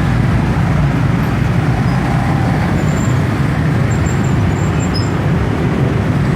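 Dense city road traffic of cars and motorcycles, their engines and tyres running together as a steady, unbroken drone.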